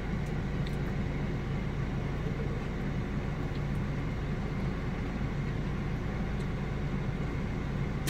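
Car engine idling, heard from inside the cabin as a steady low hum.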